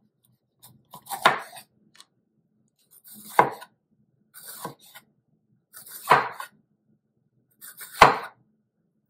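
Kitchen knife slicing a green pepper into thin strips on a wooden cutting board: five slow, separate cuts, each a short crunch through the pepper ending in a knock of the blade on the board, one of them lighter than the rest.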